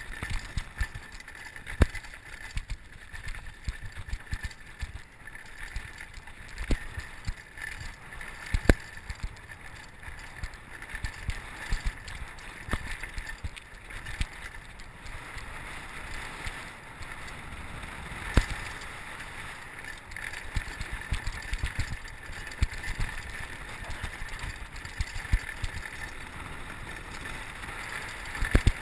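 Mountain bike ridden fast down a rough dirt and rocky trail: a steady rush of wind on the camera microphone with rumble, and frequent irregular knocks and rattles as the bike bounces over rocks and bumps.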